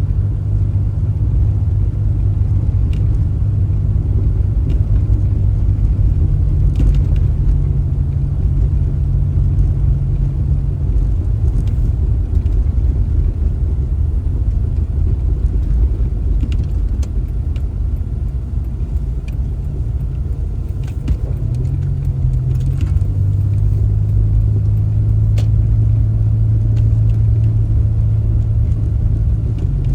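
Car driving: a steady low engine and road rumble. The engine note drops about a third of the way through and rises again a little past the two-thirds mark, with faint scattered clicks over it.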